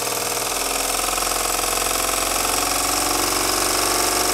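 Bowman-Bryant BM twin-cylinder valveless model marine steam engine running fast on steam, a rapid, even clatter like a little sewing machine. It gets gradually louder as more steam is fed to it.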